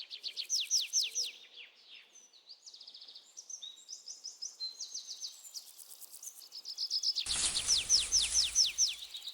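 Forest birdsong: a run of quick high notes, each sliding downward, then softer chirping and trills, then another run of falling notes near the end. A steady rushing noise comes in beneath the last run.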